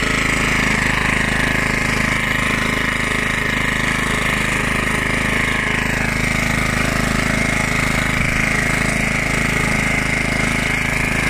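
The 3.5 hp Briggs & Stratton side-valve engine of a 1976 Hayterette rotary lawnmower running steadily under load while the mower cuts grass.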